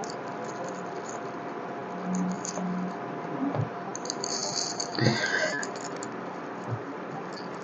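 Faint small clicks and rattling of hand-held work on a computer, over a steady background hum, with a brief high-pitched squeak about four to five seconds in.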